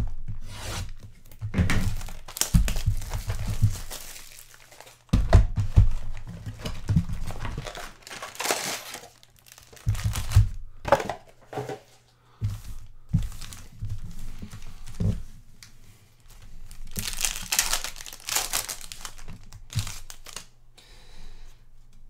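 Plastic wrapping on a trading-card box and its packs being torn open and crumpled, in irregular bursts of crinkling. There are a few dull thunks along the way, mostly in the first half.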